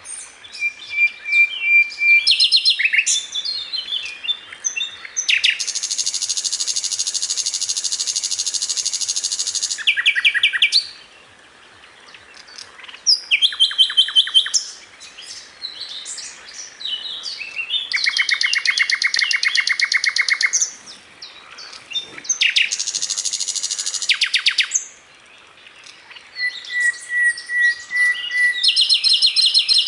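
Recorded song of a sikatan londo, a flycatcher, played as masteran for teaching caged songbirds: long, fast, buzzy rattling trills of several seconds alternating with short chattering phrases and a couple of level whistled notes.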